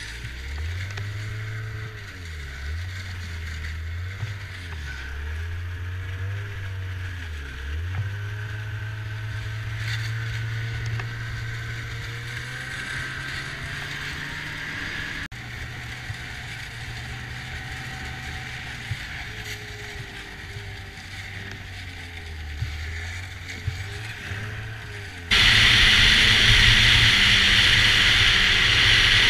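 Ski-Doo snowmobile engine running under way, its pitch rising and falling with the throttle and then holding steadier. About 25 seconds in, the sound suddenly gets much louder, with a strong rushing hiss over the engine.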